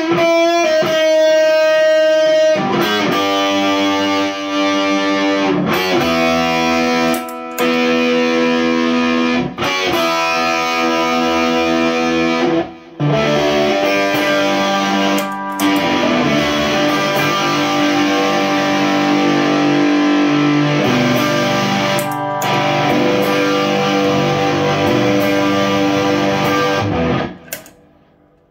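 Electric guitar, a single-coil Fender American Stratocaster through a Fender Twin Reverb amp, played through an overdrive pedal: sustained, ringing chords and single notes with a few short breaks between phrases, dying away about a second before the end.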